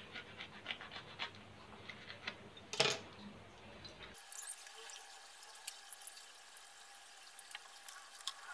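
An orange cut in half with a knife over a steel bowl, with one louder knock a little under three seconds in, then the half squeezed by hand so the juice drips and trickles into the bowl in faint small drips and clicks.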